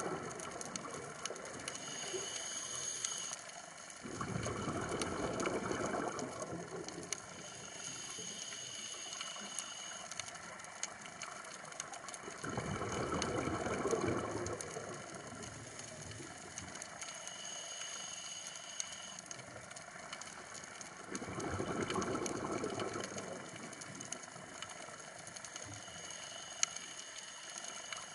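Scuba diver breathing through a regulator underwater: a thin whistling inhale, then a rush of exhaled bubbles lasting about two seconds, repeating about every nine seconds. A constant fine crackle of clicks runs underneath.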